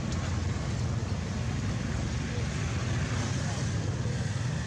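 A steady low rumble with an even hiss over it, holding the same level throughout.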